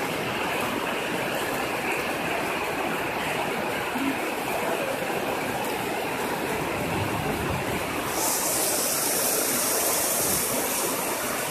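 Heavy rain pouring down on the station roof and tracks, a steady rushing hiss. About eight seconds in, a brighter, higher hiss joins in.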